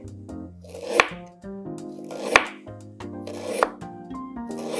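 Chef's knife slicing through fresh ginger root and knocking on a bamboo cutting board: four separate cuts, about one every second and a bit, each a short crunching slice ending in a sharp knock.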